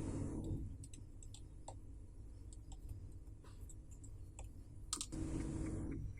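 Light, scattered clicks and ticks of small metal watch parts and tools being handled during reassembly of the watch, with two short spells of duller handling noise, one at the start and one near the end.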